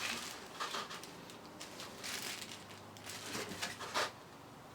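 Faint, scattered handling noises of unpacking: packaging rustling and small parts being moved about, with a slightly louder knock about four seconds in.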